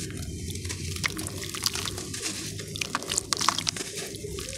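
Hands squeezing and crumbling a wet lump of ash in water: wet squishing and dripping, with many short crisp crackles as the lump breaks apart.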